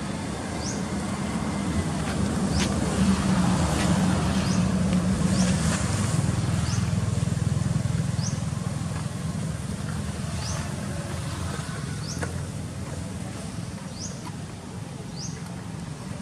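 Low motor rumble, likely a vehicle engine, that swells louder over the first half and then eases off. A short, high, rising chirp repeats about once a second throughout, with a few light clicks.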